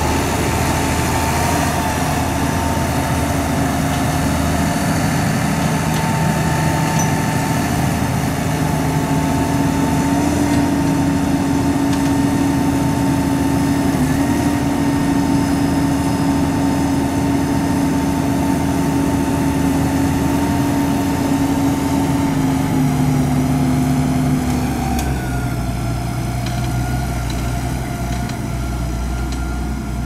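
Massey Ferguson 6465 tractor's four-cylinder diesel engine running steadily under load while pulling a reversible plough through the soil. About 25 seconds in, the engine note drops lower and the sound gets a little quieter.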